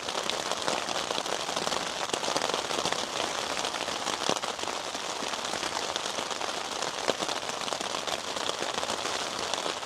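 Steady rain hitting a shelter's roof overhead, with scattered louder drops ticking now and then.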